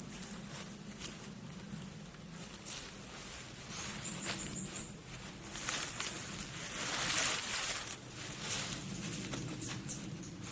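Rustling and scraping with scattered light knocks, loudest in the middle, and a short run of about five high chirps about four seconds in.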